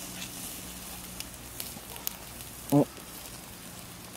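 A single loud throaty gulp of beer being swallowed, about three seconds in, over faint scattered ticks from the lit charcoal grill.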